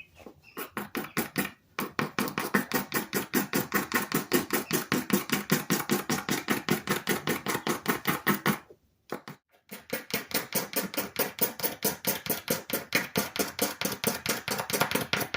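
Hand scraping of old stain off a wooden hand-plane knob and handle: quick, even back-and-forth strokes, about five a second, stopping briefly about nine seconds in and then resuming.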